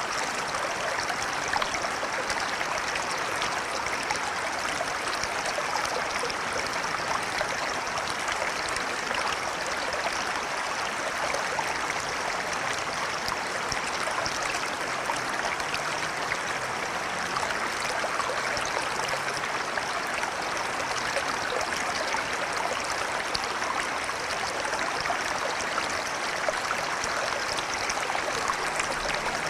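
River water flowing and babbling steadily over rocks, an even rushing wash with a fine splashing texture that never changes.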